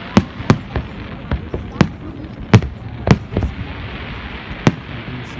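Fireworks exploding: about eight sharp bangs at irregular intervals, some in quick pairs, over a steady background rumble.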